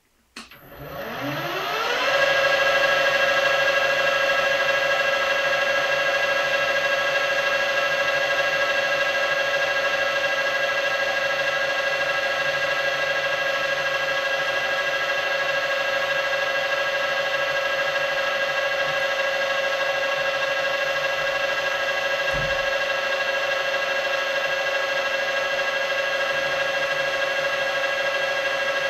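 Metal lathe switched on: the motor and gearing spin up over about two seconds, then run at steady speed with a steady whine. A brief low knock comes about 22 seconds in.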